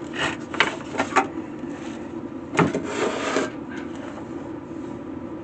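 Fence charger parts being handled: three or four sharp clicks and knocks, then a scraping rub lasting about a second, over a steady low hum.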